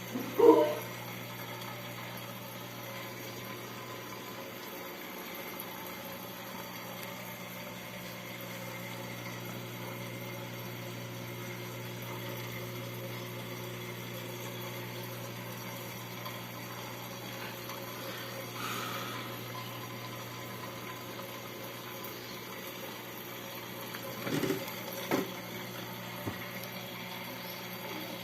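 Aquarium pump humming steadily, with a faint sound of moving water. A brief louder sound about half a second in and two short knocks near the end.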